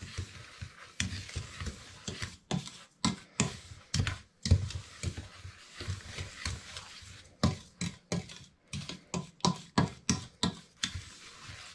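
Wooden spoon stirring sugar into toasted semolina in a stainless steel pot: irregular scraping and knocking of the spoon against the pot, coming faster in the second half.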